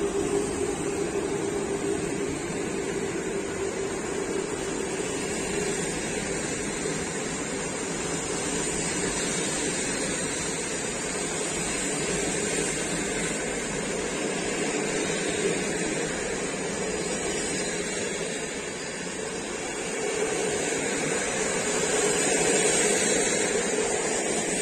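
PKP Intercity passenger coaches of a departing train rolling past on the track: a steady rumble and hiss of wheels on the rails.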